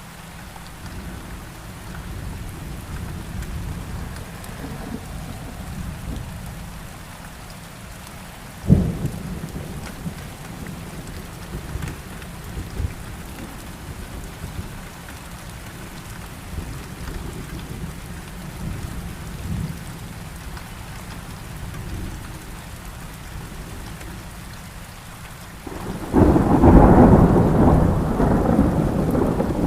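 Thunderstorm: steady rain with low rolling thunder. A sharp thunder crack comes about nine seconds in, and a loud, long peal of thunder starts near the end.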